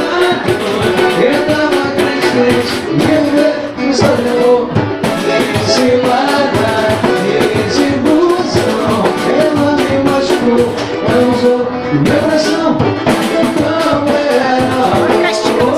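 Samba-pagode band playing, with a singing voice over the instruments and percussion strokes.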